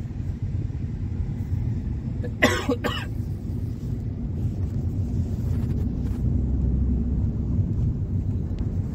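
Steady low road and engine rumble inside a moving car's cabin, getting a little fuller as the car gathers speed. A brief cough cuts through about two and a half seconds in.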